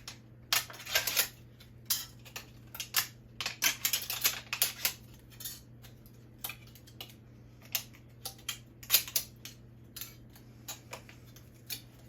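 Thin aluminum from a drink can being cut into little strips: irregular sharp snips, clicks and crinkles of the metal sheet, in clusters with short pauses between.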